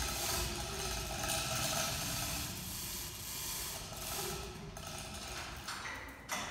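Chain hoist worked by hand, lifting an aluminum boat hull: a steady rattle of chain and ratcheting clicks from the hoist's gearing.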